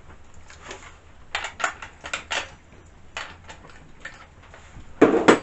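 Small hand tools and kit pieces being handled and set down: scattered light clicks and clinks, with a louder clatter about five seconds in.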